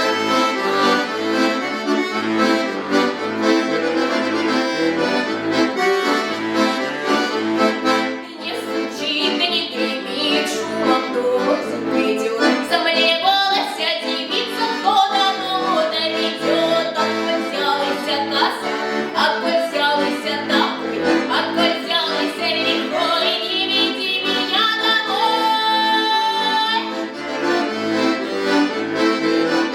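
Accordion playing a folk-song arrangement: sustained chords with a melody line above them, starting abruptly right at the start.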